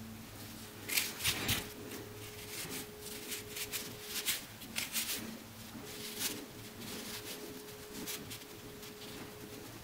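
Fingers handling small metal and wire parts of a light socket: scattered light clicks and rustles over a faint steady hum.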